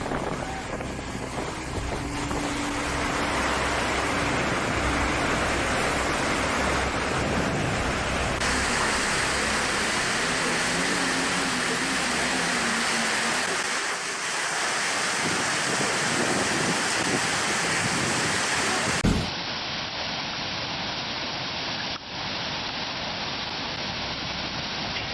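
Steady rushing storm noise of wind and water, like heavy rain or surf, running across spliced clips that change abruptly about a third of the way in and again near three quarters through, with a short thump at the second change.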